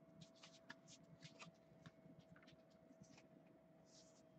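Near silence: faint scattered ticks and light rustles of a stack of trading cards being handled and squared, over a faint steady hum.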